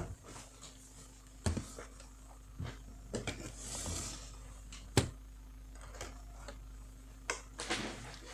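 Scattered clicks and knocks of laptop parts and tools being handled on a desk, the sharpest knock about five seconds in, with a brief rustle just before it. A steady low hum lies under them.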